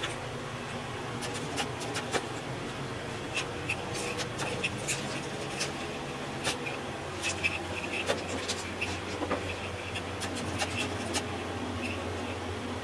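Thin binding wire being twisted by hand at the back of a stretched canvas: irregular small scratches and ticks as the wire rubs against the canvas, over a steady low hum.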